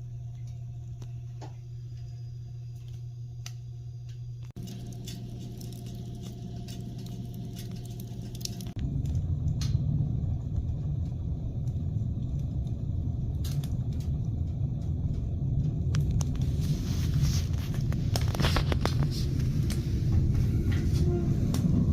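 Wood fire crackling with scattered sharp pops over a low rumble that turns louder about nine seconds in.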